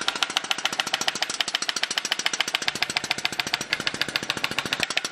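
Electronic mesotherapy injector gun clicking rapidly and evenly, about a dozen clicks a second, as its needle fires vitamin injections into facial skin.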